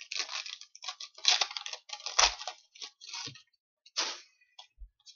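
A stack of glossy cardboard hockey trading cards being flicked and slid through the hands one after another: an irregular run of quick papery snaps and rustles, a few of them louder.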